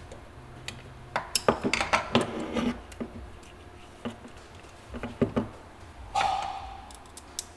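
Small metal and plastic parts being handled on a wooden workbench: a T-handle hex key clicking and knocking against a small airsoft gearbox and motor. About six seconds in there is a short clatter as the key and gearbox are set down on the wood.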